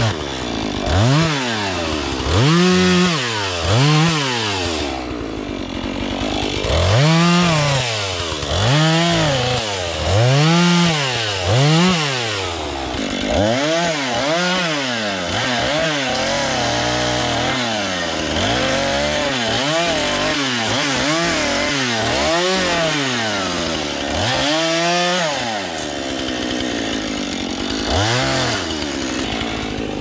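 Husqvarna two-stroke chainsaw limbing a felled red pine: the engine is revved up for a short cut every second or two and drops back to idle between cuts. Near the end it mostly idles, with one more short rev.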